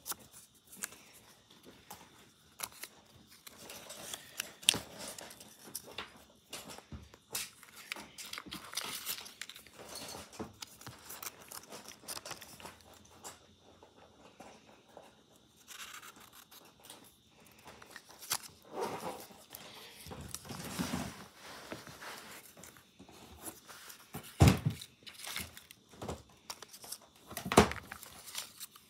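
Paper slips being handled and rustled and dropped into a clear plastic tub, with scattered small clicks and a few louder knocks near the end.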